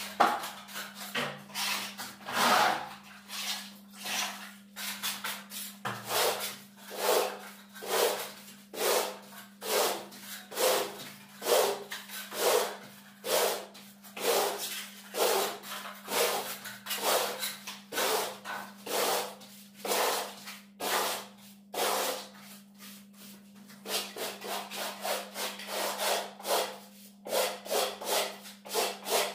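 A plastering float rubbed over fresh bark-beetle (koroed) decorative plaster on a wall to raise its grooved texture: a scratchy rasping stroke repeated about one and a half times a second, with a short lull about three-quarters of the way through.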